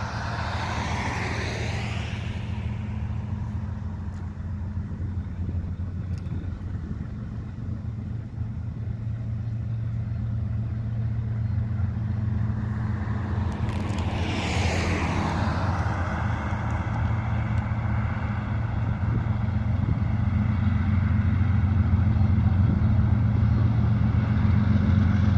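Diesel locomotives of an approaching Union Pacific intermodal train, a GE ES44AC in the lead: a steady low engine drone that grows louder as the train nears. Road vehicles pass by twice, about a second in and again about halfway through.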